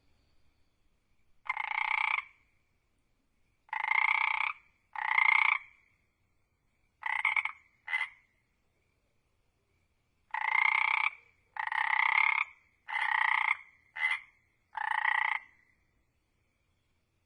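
A frog croaking: about ten separate croaks, each under a second long, come in irregular groups of two to four with short silent pauses between.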